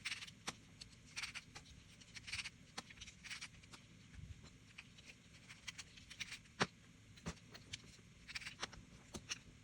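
Faint handling sounds of a folding knife prototype being taken apart by hand: scattered small clicks and short scratchy rasps of a driver and small parts as the pocket clip comes off for reversing.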